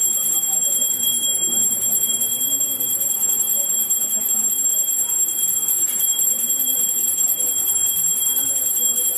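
Temple bell rung continuously, a steady high ringing with several held tones and a fast, even flutter.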